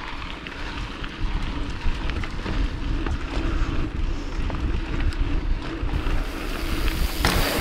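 Wind buffeting the microphone of a mountain bike's onboard camera, over tyres rolling on a sandy dirt trail, with scattered small clicks and rattles from the bike. A louder rush comes shortly before the end.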